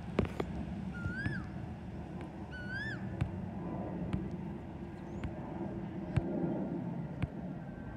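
Distant jet rumble of an Airbus A320's CFM56 engines passing overhead. Over it, a rising-and-falling animal call comes three times about a second and a half apart in the first three seconds, and short sharp clicks come here and there.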